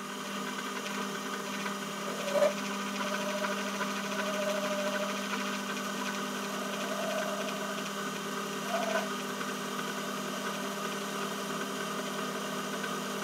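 Myford ML7 lathe running steadily under power, its motor and drive humming, with a faint wavering higher tone that comes and goes.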